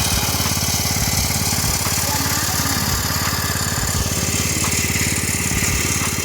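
Engine of an irrigation pump set running steadily with a fast, even beat.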